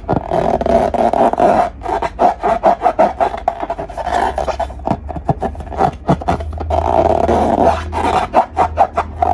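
Slime being squished and kneaded by hand, with a dense stream of sticky clicks and pops.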